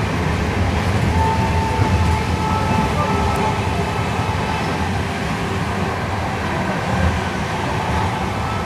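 Train running fast, heard from an open coach doorway: a steady rumble of wheels on the track. A faint, thin high whine comes in about a second in.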